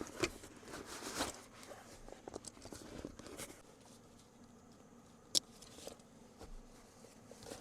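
Rummaging through stored gear by hand: faint rustling and scraping of handled items with small scattered clicks, and one sharp click about five seconds in.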